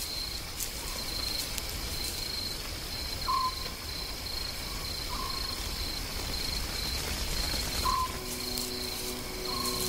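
Night bush ambience: insects trilling steadily, a short call repeated every two seconds or so, and faint crackles from a burning grass fire over a low rumble.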